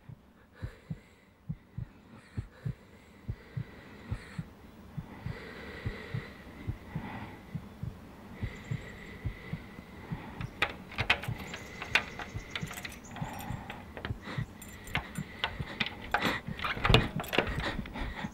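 Heartbeat sound effect: a steady rhythm of low thumps under a faint steady high tone. From about halfway through, sharp clicks and rattles join in and grow denser and louder, peaking near the end.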